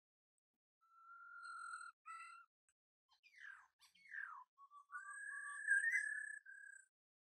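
Puppy whining in high, thin whines: a held whine about a second in, a few short whimpers, two whines that fall in pitch in the middle, then a longer, slightly wavering whine near the end, with silence between them.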